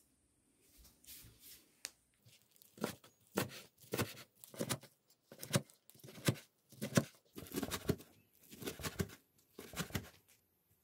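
A kitchen knife chopping soaked wakame seaweed on an end-grain wooden cutting board: about a dozen separate cutting strokes, roughly one or two a second, starting a few seconds in after some quieter handling.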